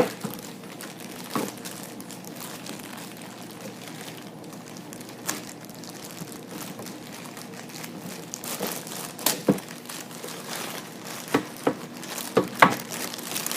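Crinkly packaging rustling and crackling as it is handled and pulled open to unwrap a toy figure. The crackles are scattered at first and come thicker and louder in the second half.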